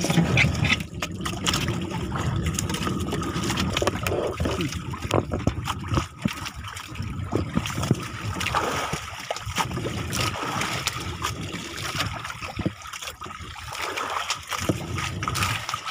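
Sea water sloshing and splashing against the hull of a small wooden outrigger boat, with scattered light clicks and knocks.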